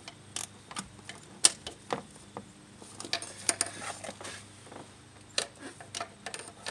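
Hand ratchet with a 12 mm socket clicking as the throttle-body nuts are snugged down lightly, with metal taps of tool on fittings. The clicks and taps come irregularly, some in short quick runs.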